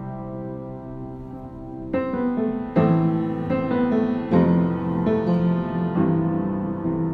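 Slow, soft piano music: sustained notes and chords, a new one struck about every second.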